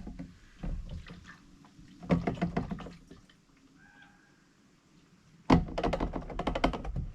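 Fuel being poured from a container, glugging in quick pulses. It comes in three spells, the last and loudest about a second and a half long.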